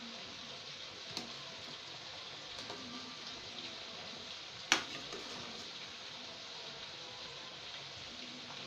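Metal ladle stirring broth in a pot, clinking against the pot a few times, with one sharp clink about halfway through, over a steady low hiss of cooking on the stove.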